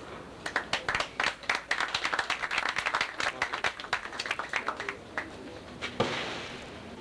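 Spectators' scattered applause, many irregular claps that die away about five seconds in. About six seconds in comes one sharp knock followed by a short fading hiss.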